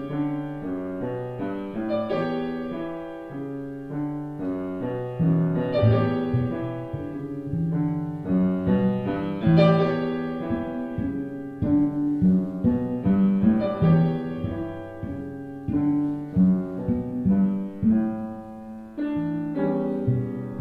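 Grand piano playing a flowing passage of single notes and chords, each struck and dying away, several notes a second.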